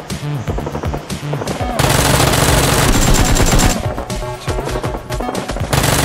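Rapid automatic gunfire sound effects over background music, with a louder, denser stretch of fire from about two to nearly four seconds in and again near the end.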